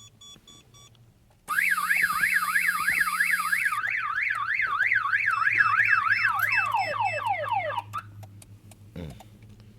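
Aftermarket car alarm siren, part of a remote-start system, wailing up and down about three times a second, then changing to quick falling chirps and stopping about eight seconds in. A few short electronic beeps come just before it starts, and a single thump follows near the end.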